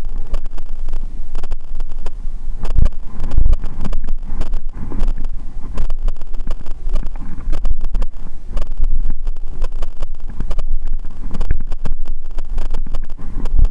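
Wind buffeting the microphone of a camera mounted on a fast-moving mountain bike, a loud low rumble with frequent knocks and rattles from the bike over the ground.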